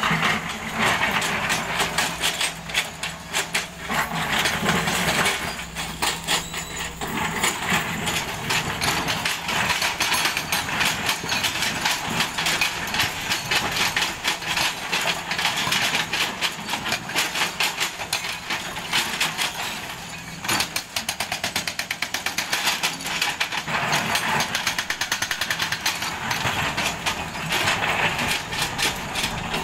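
Hydraulic breaker on a Kobelco SK140 excavator hammering rock in rapid, continuous blows, with the excavator's diesel engine running underneath. The hammering stops briefly about twenty seconds in, then resumes.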